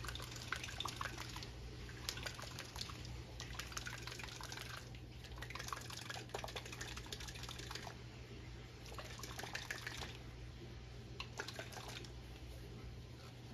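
Bottle of tennis-string stencil ink being shaken and handled: liquid sloshing inside, with irregular small clicks and taps.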